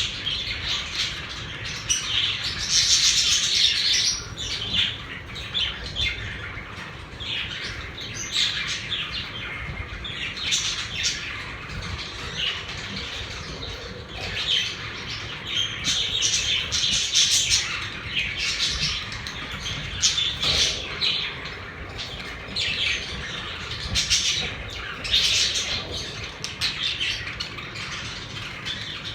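Pet budgerigars chattering and chirping continuously, many short calls overlapping, with occasional louder squawks.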